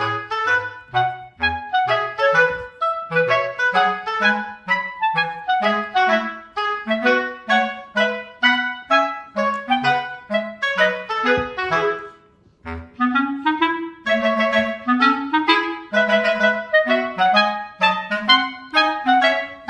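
Background music: a bouncy, playful melody on a clarinet-like woodwind over a bass line, with a brief pause about twelve seconds in.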